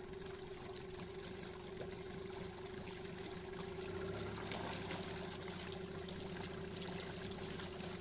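A 15 HP Yamaha two-stroke outboard running in gear in a test barrel, with a steady hum. Its propeller churns and splashes the barrel water, which grows slightly louder about four seconds in.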